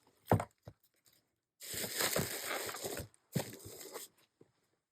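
Album packages being handled: a short knock, then two stretches of rustling and crinkling, the longer one about a second and a half long.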